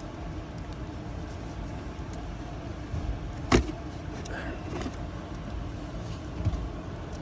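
A sharp plastic click about halfway through, with a few lighter ticks and a soft knock later, as the cabin filter access door behind the glove box is unclipped. A steady low rumble lies underneath.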